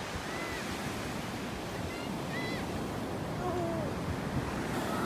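Steady wash of ocean surf breaking on a sandy beach, with a few faint short high cries over it.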